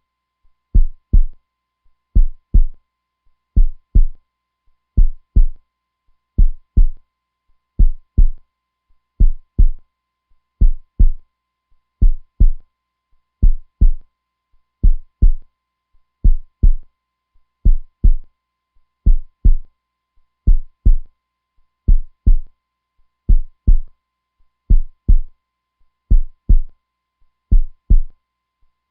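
Heartbeat: steady pairs of low, dull thumps (lub-dub), about one pair every second and a half, slow and even.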